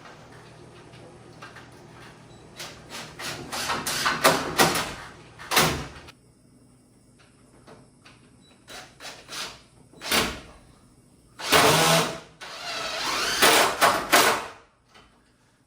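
Irregular knocks and scraping from building material being handled and set into place, in two clusters with a quieter stretch between them.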